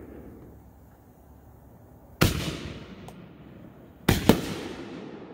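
Aerial firework shells bursting: a single sharp bang about two seconds in, then two bangs in quick succession about four seconds in, each trailing off in a long echo.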